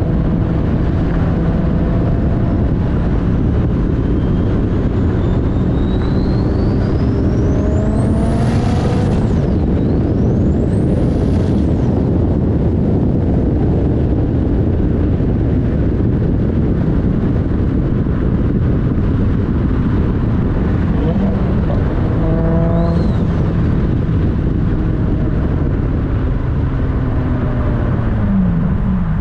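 Turbocharged RB25 straight-six in a 240SX, heard from inside the car as it drives under load. A high turbo whistle climbs steeply to a shrill pitch about eight seconds in, drops away, and climbs again a few seconds later. A shorter whistle comes near the twenty-two second mark.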